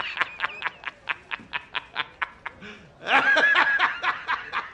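A man's hearty film-clip laughter, in rapid even 'ha-ha-ha' pulses of about five a second, breaking into a louder, higher laugh about three seconds in, then going back to the quick pulses.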